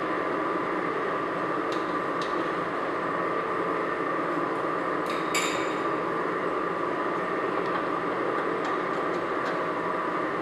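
Light metallic clicks and one sharper ringing clink about five seconds in, from the lower shock absorber mounting bolt and the shock's lower end being handled, over a steady background hum.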